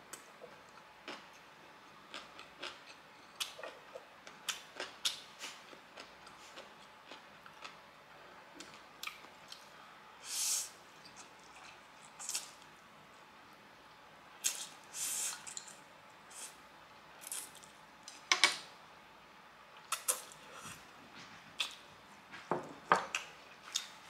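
Close-miked eating sounds of a person slurping and chewing spicy fire noodles: many short wet mouth clicks and smacks, with a longer slurp about ten seconds in.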